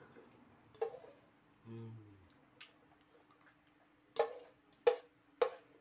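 A man slurping rice porridge from the rim of a rice-cooker pot: one small slurp about a second in, a brief low hum from his throat, then three short wet slurps in quick succession near the end.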